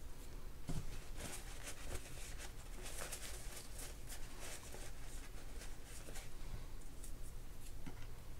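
Paper shop towel rubbing and wiping small fishing-reel parts clean of old grease and dirt: faint, scratchy rustling with scattered light taps.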